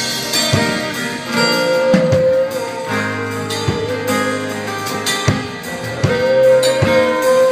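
Live reggae gospel band playing: strummed guitars over bass and drums, with a long held melody note twice.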